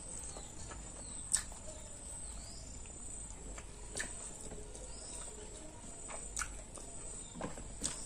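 A person eating: chewing with wet mouth clicks and smacks, a sharp click every couple of seconds.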